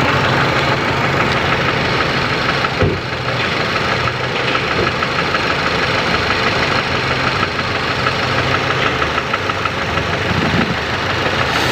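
Car engine idling steadily, with a fast, even ticking over its hum.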